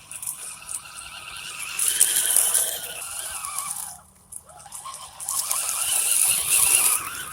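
MN86KS Mercedes G500 scale RC crawler driving, its electric motor and gearbox whining. The whine rises and falls with the throttle in two pulses, a short pause about four seconds in.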